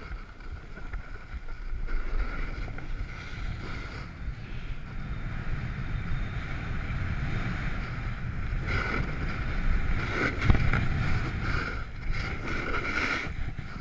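Wind buffeting the microphone of a snowboarder's body-mounted camera while the board slides over packed snow, with louder rough scrapes of the board's edge on the snow several times in the second half.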